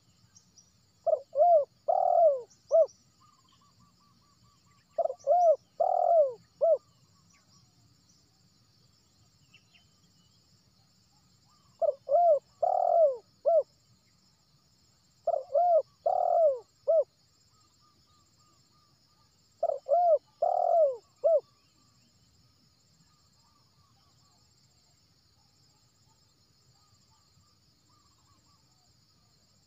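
Spotted dove cooing: five phrases of three or four coos each, a few seconds apart, over a faint high insect buzz.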